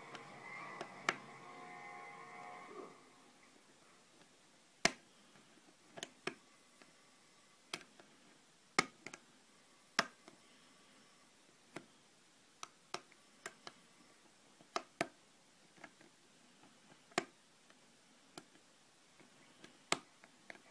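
Lock pick working the pins of a five-pin ISEO cylinder under tension: sharp, irregular metallic clicks, roughly one a second.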